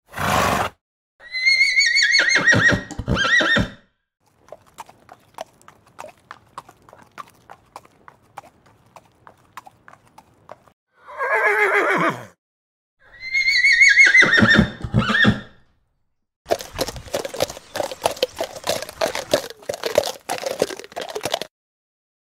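Horses whinnying: two long, high neighs that shake and fall away, with a shorter lower call between them and a short noisy burst at the very start. Between and after the calls, horse hooves clip-clop, faintly at first and then in a denser run of hoofbeats near the end.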